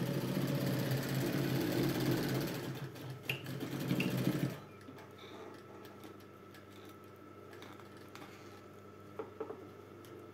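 Sewing machine stitching through fabric at a steady speed for about four and a half seconds, then stopping abruptly. A few light clicks follow near the end.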